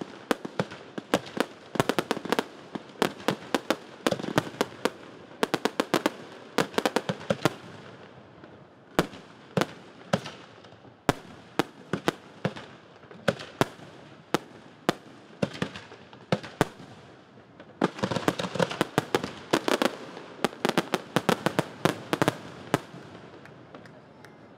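Fireworks display: aerial shells bursting in a rapid series of sharp bangs, thinning out through the middle and coming thick again in a dense volley near the end before dying away.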